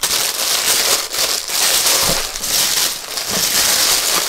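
Gucci shoe packaging crinkling and rustling as it is handled, loud and continuous with uneven swells.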